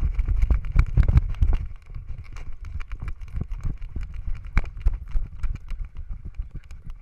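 A GoPro in a harness mount on a running miniature schnauzer's back, knocking and rattling in a rapid, uneven run with the dog's strides. Wind rumble on the microphone is heavy for the first couple of seconds, then lighter.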